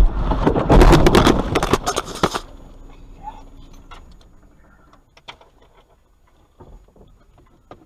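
Car collision: a loud crash and crunch that runs for about two and a half seconds and then dies away, followed by scattered small knocks and rattles inside the car.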